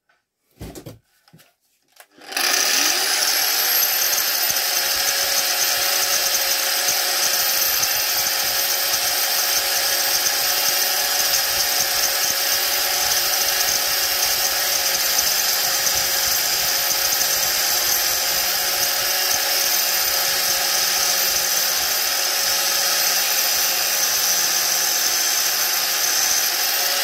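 A few knocks, then an angle grinder starts about two seconds in, spins up and runs steadily with a high whine. Its grinding disc is cutting a shallow groove into a hazel hiking stick.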